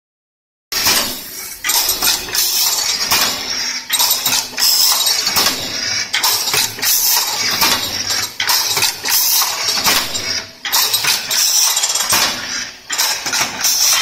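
Crimped wire mesh weaving machine running, its mechanism clanking metal on metal in a steady rhythm of more than one strike a second as it weaves the steel wire mesh.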